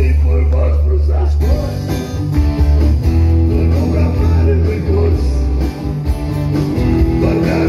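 Live rock band playing electric and acoustic guitars over a strong, deep bass line.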